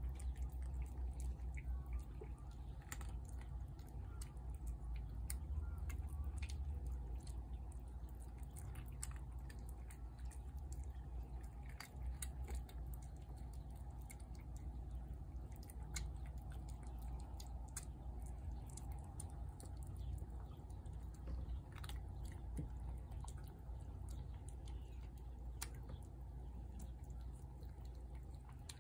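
A cat eating from a plate: irregular small crunches and clicks of chewing over a steady low rumble.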